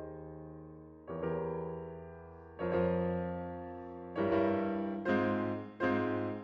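Background piano music: full chords struck one at a time and left to ring, about every second and a half at first, then closer together near the end.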